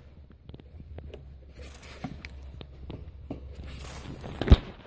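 Hands working at the fuel line connectors on top of a fuel pump module: small clicks and rustling of plastic sheeting, with one sharp knock about four and a half seconds in.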